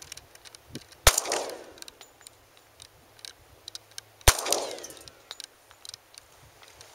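Two shots from a stock Glock 20SF pistol in 10mm Auto, about three seconds apart, each trailing off in a short echo.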